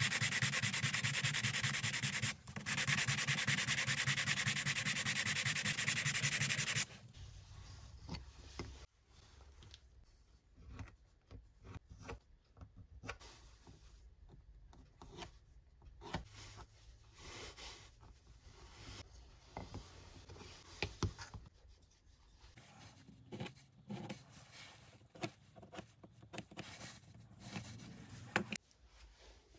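A wooden knife handle scale is rubbed back and forth on a sheet of sandpaper in quick, steady strokes, with a short pause after about two seconds. The sanding stops about seven seconds in. Only faint, scattered scratches and light handling taps follow: a pencil tracing around the handle onto card.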